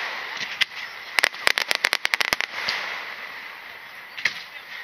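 Starmine fireworks crackling: a rapid cluster of sharp pops from bursting crackle stars about a second in, fading into a hiss, with one more pop near the end.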